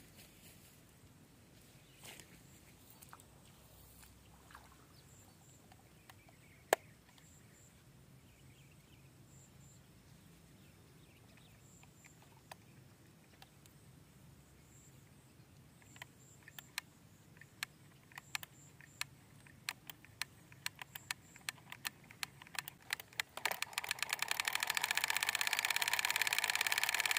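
Miniature model diesel water pump: scattered small mechanical clicks as its engine is handled, then about 23 s in its small motor starts and keeps running with a fast, even rattle.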